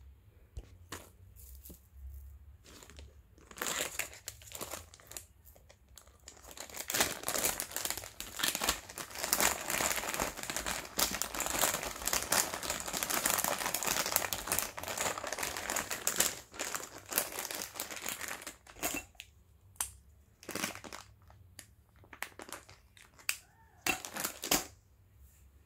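Clear plastic jewellery packets crinkling as they are handled. A dense stretch of crinkling runs through the middle, with scattered rustles and light taps before and after it.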